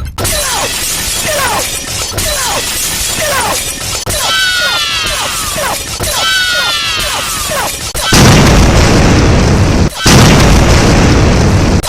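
Sound effects in a row: a quick run of short falling whistles, then two longer descending whistles, then two loud explosion-like booms of about two seconds each.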